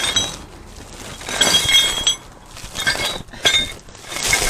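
Broken metal fragments of the gear ring from a Shifeng three-wheeler's gearbox clinking and rattling out of the housing in several bursts. The debris comes from the big gear ring breaking apart.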